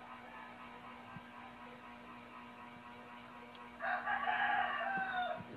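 A rooster crowing once about four seconds in, a single call of under two seconds that drops in pitch at the end, over a steady low hum.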